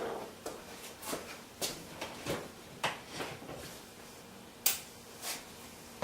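A series of light, irregular knocks and clicks, about eight in all, the sharpest about two-thirds of the way in.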